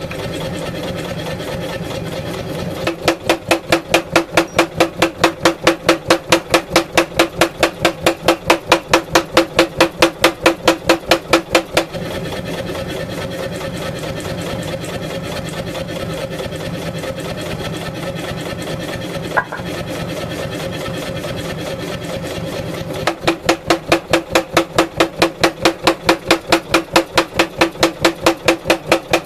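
Mechanical power hammer with a 16 kg head drawing out a hot wootz ingot: runs of heavy, regular blows at about three to four a second, with quieter stretches of lighter running between them.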